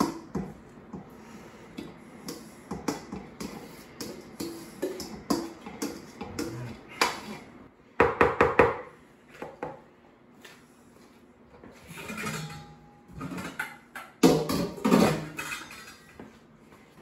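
Stainless steel mixing bowl knocking and scraping against a large plastic bowl as shredded slaw vegetables are tapped out of it: a run of irregular clicks and knocks, with a few louder clatters partway through.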